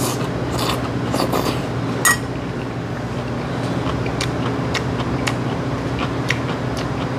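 A person eating with a metal spoon close to the microphone: slurping and chewing, with small clicks and one louder clink about two seconds in, over a steady low hum.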